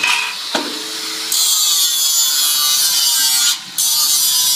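Handheld electric angle grinder biting into a stainless steel wheel cover for a spark test. The loud, steady grinding hiss starts a little over a second in, breaks off briefly about three and a half seconds in, then resumes.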